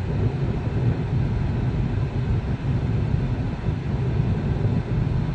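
Road and tyre noise inside a Tesla Model 3's cabin while cruising at about 60 mph: a steady low rumble with a fainter hiss above it, and no engine sound.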